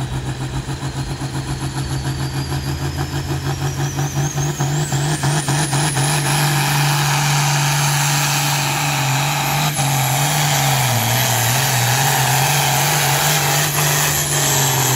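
Pulling tractor's diesel engine at full throttle hauling a weight-transfer sled. It builds up with a pulsing beat and a high whistle rising steeply, typical of a turbocharger spooling, over the first several seconds. It then holds a loud, steady wail.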